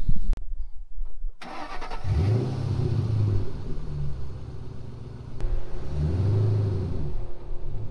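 2005 Ford Mustang GT's 4.6-litre V8 running close by, its engine note rising and falling twice.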